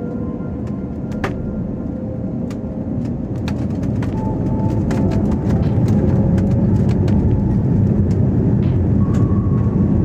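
Airbus A320-family jet heard from inside the cabin, a dense rumble of engine and airflow that grows louder from about three seconds in and then holds as thrust comes up for the takeoff roll. Light rattles and knocks sound over the rumble.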